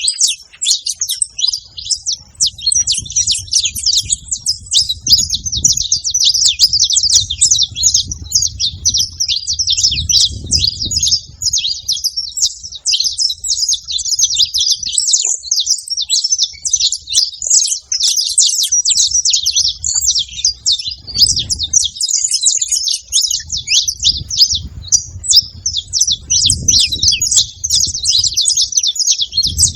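Saffron finches chirping in a dense, rapid chatter of short high notes that never pauses.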